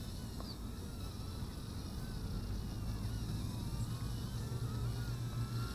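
Wind rumbling on the microphone, with the faint whine of a distant DLFPV DL-1060 micro quadcopter's brushed motors, rising and falling in pitch as it flies.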